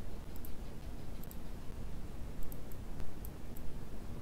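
Computer mouse clicking several times, some clicks in quick pairs, over a steady low background hum.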